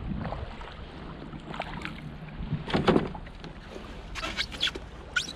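Paddle strokes and water splashing and lapping around a small wooden sailing kayak as it is paddled into shallow water, over a low steady wash of wind and water. The sharpest splash comes about three seconds in, with a short cluster of lighter ones a second later.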